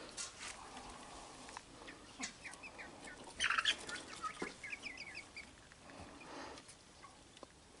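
Young chickens calling in short, high peeps that come in quick runs, with a brief louder rustle about three and a half seconds in.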